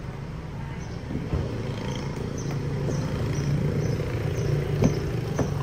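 Car engine idling with a steady low hum that grows slightly louder, with faint high chirps repeating about twice a second above it and a couple of light knocks near the end.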